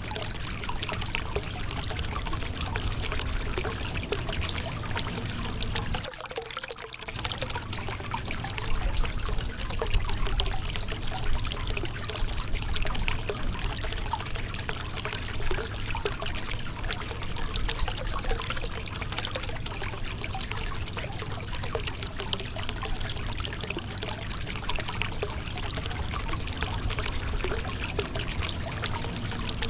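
Shallow river water running and splashing over a rocky bed: a steady rush with many small splashes and gurgles, briefly thinning out about six seconds in.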